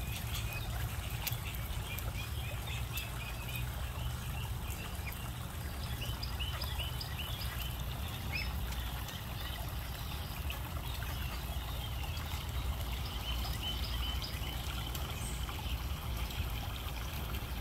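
Steady trickle of water into a small backyard pond over a low steady rumble, with short high peeps from the young geese and ducks, including a quick run of five or six about six seconds in.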